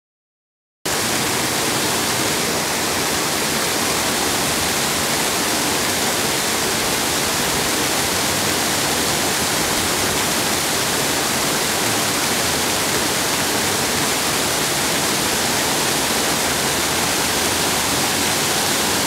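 Water pouring over a mill dam spillway into the pool below: a steady rushing that cuts in abruptly just under a second in.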